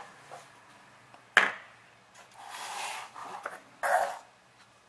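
Handling noises from hands working off-camera: a single sharp knock about a second and a half in, a soft rustle around three seconds, and a short knock or scrape near four seconds.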